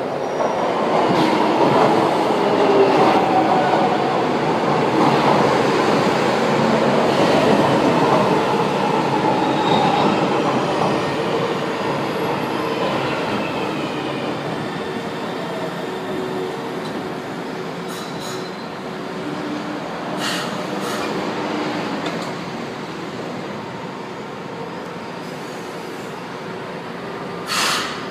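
São Paulo Metro Line 1 train pulling into the platform and braking to a stop: loud rumble of wheels on rail as the cars pass close, fading steadily as it slows, with a faint whine that drops in pitch. Short air hisses come about two-thirds of the way in, and a louder hiss just before the end.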